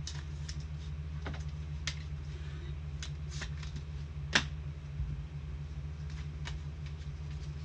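Scattered light clicks and taps of trading cards and card holders being handled on a table, with one sharper tap about four and a half seconds in, over a steady low hum.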